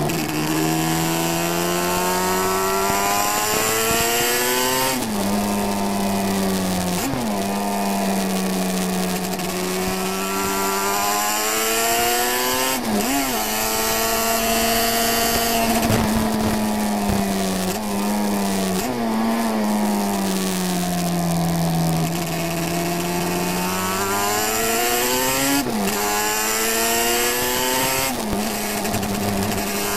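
350cc classic racing motorcycle engine at race speed, heard from on board: the revs climb and fall with the throttle, with a quick pitch jump at each gear change about half a dozen times. Wind noise and crackling from a damp camera microphone lie over it.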